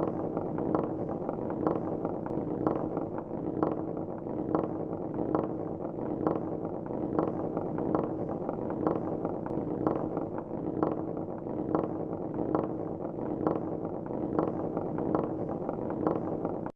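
Marbles rolling along a marble-run track: a steady rumble with regular clicks about twice a second.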